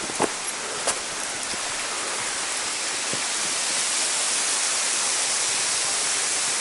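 Falling water rushing steadily, with a few separate drips splashing in the first seconds. The rush grows a little louder over the second half.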